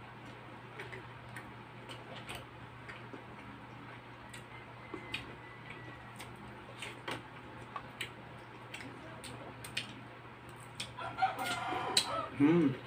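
Close-miked eating sounds: chewing and lip-smacking on grilled pork barbecue, soft wet clicks over a steady low hum. Near the end a rooster crows in the background, followed by a short hummed 'mmm' of approval.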